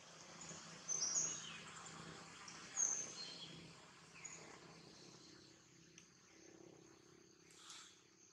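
Forest ambience: birds giving short high chirps, the loudest about a second in and just before three seconds, over a faint steady insect drone.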